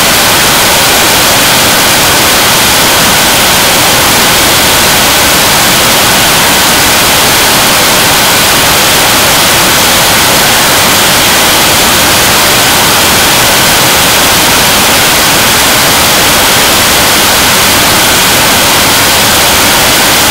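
Liquid-propellant rocket engine, the 7-tonne-class test model for the Korean launch vehicle, firing at steady thrust during a hot-fire test: a loud, even rushing roar with no change in level.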